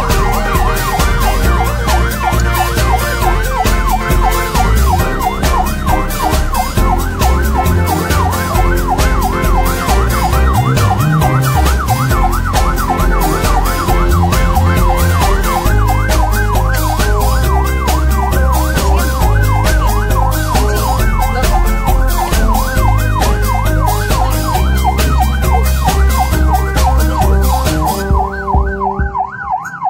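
Several ambulance sirens sounding together in a convoy, fast warbling yelps overlapping one another over a heavy low drone. Near the end the bright upper part falls away.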